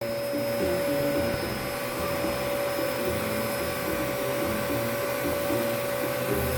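Vacuum cleaner running steadily, its motor giving a constant whine over the rush of air.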